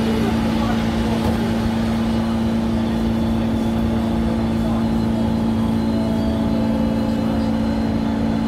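Kawasaki Heavy Industries C151 MRT train running at a steady speed: a constant hum with a steady rumble underneath, unchanged throughout.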